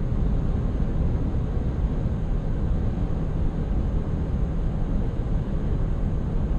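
Steady road and engine noise heard inside a vehicle's cabin while it cruises at highway speed: a low, even rumble with a fainter hiss above it.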